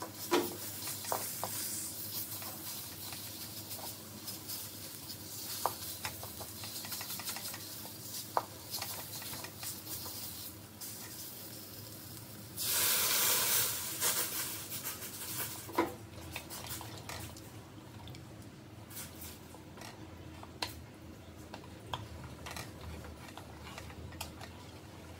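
Pork frying in a pan with a light sizzle, a wooden spatula scraping and knocking against the pan. A little past halfway, liquid poured into the hot pan hisses loudly for about a second and a half; after that it is quieter.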